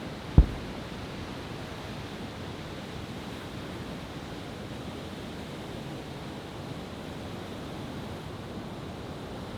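A single deep boom from a large aerial firework shell about half a second in, over a steady rushing background noise.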